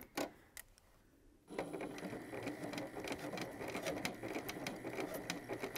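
Spiegel sewing machine stitching steadily at a fast, even pace, starting about a second and a half in after a few light clicks.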